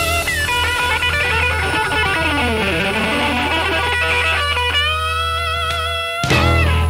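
Blues band's closing bars, led by an electric guitar playing bent, wavering lead lines over a steady bass. The guitar runs down the neck, holds a long vibrato note, and the band ends on one final hit that cuts off at the very end.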